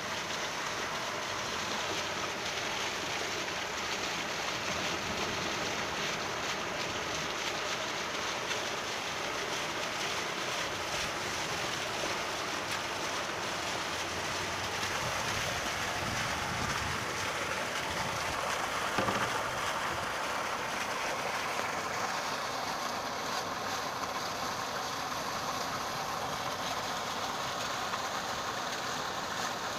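Heavy rain falling in a steady, even hiss. There is one brief louder bump about two-thirds of the way in.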